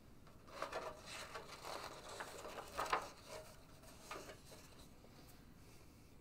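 Page of a hardcover picture book being turned by hand: a few seconds of paper rustling and sliding, loudest about three seconds in.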